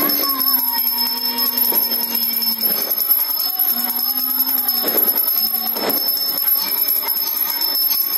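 Puja hand bell rung continuously during an aarti, a steady bright ringing, with a slow wavering melody underneath.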